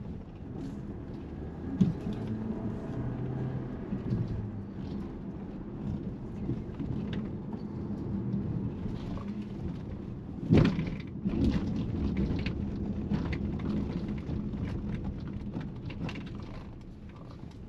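Road rumble of a Hyundai ix35 being driven, a steady low noise with scattered light knocks and one heavier thump about ten and a half seconds in.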